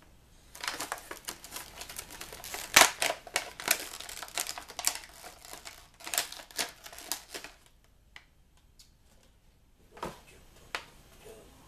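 Plastic packaging crinkling and crackling in the hands as a toy figure is unwrapped from its box, for about seven seconds. After a quiet stretch, two light knocks near the end.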